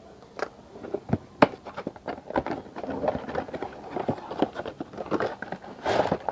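Packaging being handled as ceiling-fan blades are unpacked: irregular rustling and crackling with light clicks and knocks, busier near the end.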